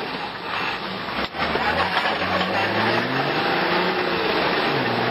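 4WD engine heard from inside the cab, revving up and easing off in slow swells. There is a brief dip in the sound about a second in.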